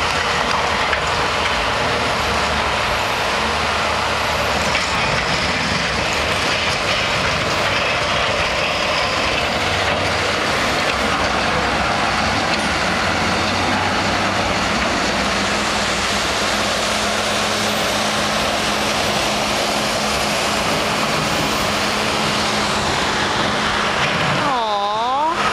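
Heavy diesel snow-removal machinery working a street: a wheel loader and a skid-steer loader running steadily at close range. Near the end a brief tone dips and rises in pitch several times.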